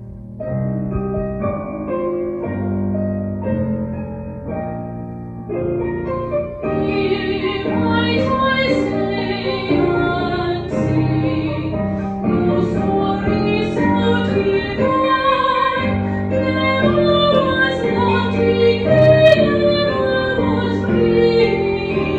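A woman singing a solo over a keyboard accompaniment, growing louder about six seconds in.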